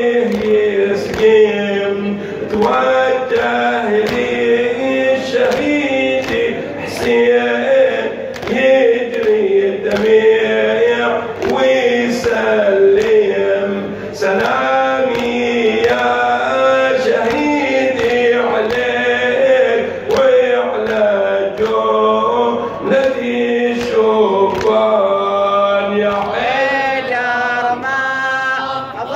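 Male voices singing an Arabic Shia nawha (mourning lament) over a steady beat of sharp hand strikes on the chest (latam).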